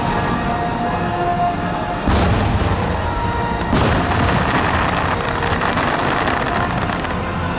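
Fireworks shells bursting with loud booms, two sharp ones about two and four seconds in, over the show's accompanying music.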